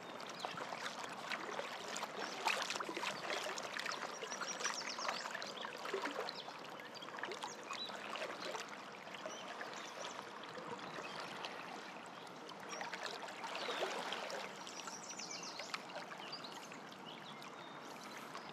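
River water running over a riffle, a steady rush with small splashes and lapping.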